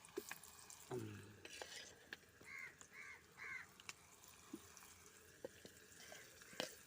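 Scattered clicks and light knocks of utensils against a cooking pan as cassava pieces are tipped in, with a crow cawing three times in quick succession in the middle.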